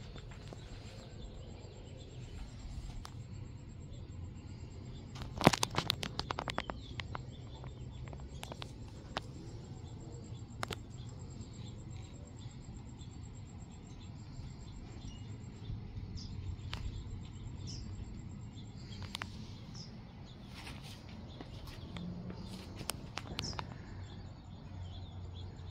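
Outdoor ambience: a steady low hum with birds chirping now and then. A short burst of sharp clattering clicks comes about five seconds in, with a few single clicks later.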